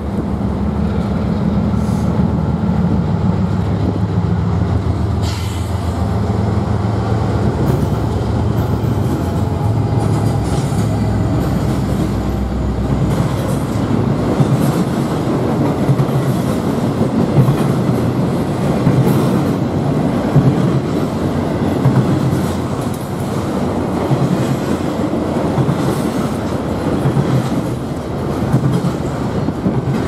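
Norfolk Southern diesel freight locomotives passing close, led by a GE Dash 9-44CW: a steady low engine drone for about the first twelve seconds, then the dense rolling noise of the intermodal cars' wheels on the rails with scattered clicks.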